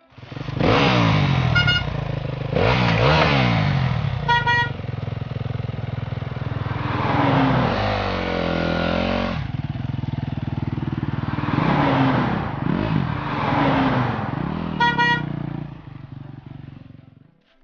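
Small motorbike engine revving up and falling back again and again, with three bursts of quick horn beeps. The engine fades away near the end.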